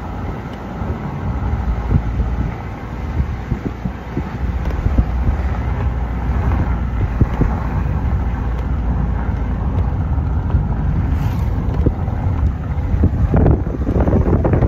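Wind rushing in at an open car window and buffeting the microphone, over the road noise of the moving car; the gusts grow stronger near the end.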